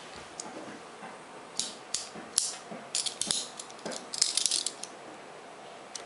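Hands handling and opening a metal tin processor box: a run of sharp clicks, scrapes and rattles from about a second and a half in until almost five seconds in.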